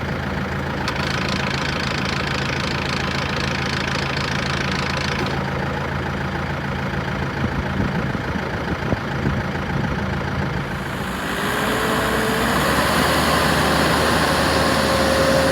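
New Holland T4030N tractor's diesel engine idling steadily. About eleven seconds in, it gets louder, with a whine that rises and then holds steady.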